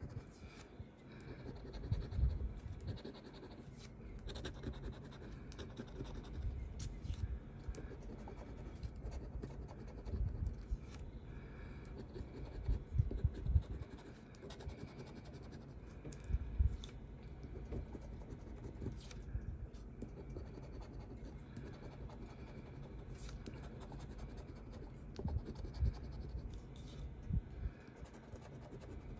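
Scratch-off lottery ticket being scratched: a continuous scraping of the latex coating off the card, with a few low knocks from handling.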